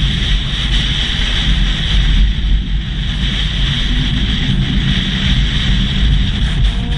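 Steady wind rush on the microphone over a low engine rumble, as picked up by a camera mounted on a moving vehicle.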